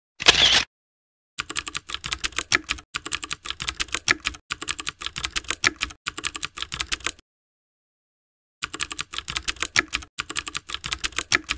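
Keyboard typing sound effect: rapid key clicks in two quick runs, one of about six seconds and then, after a pause of over a second, another of about three seconds. A brief burst of noise comes just before the typing starts.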